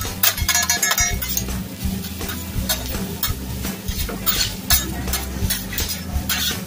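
Metal spatula clicking and scraping on a hibachi steel griddle as fried rice is stirred and chopped, in quick irregular strokes over a light sizzle of frying.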